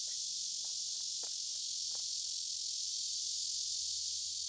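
A steady, high-pitched chorus of summer insects buzzing without a break, with a few faint knocks in the first two seconds.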